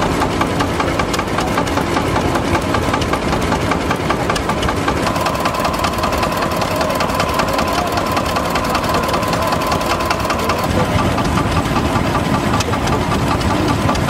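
Vintage stationary engines running with a rapid, even knocking beat. One drives a belt-driven grain mill. A steady whine joins in for a few seconds in the middle.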